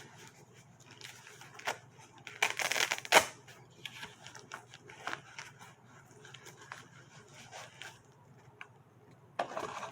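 Handling noises of unboxing: packaging and bag being rustled and crinkled, with a louder rustle about two and a half seconds in and scattered small clicks.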